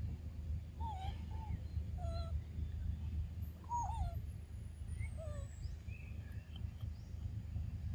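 Short, wavering chirp-like animal calls, several scattered across a few seconds, over a steady low rumble.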